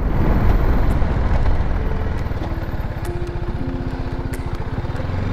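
BMW G310GS single-cylinder engine running at low road speed with a steady low pulsing. The engine note and loudness ease off a little after the middle as the bike slows.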